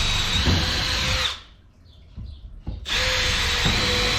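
Electric power drill running in two steady bursts with a steady whine, stopping about a second and a half in and starting again about a second later.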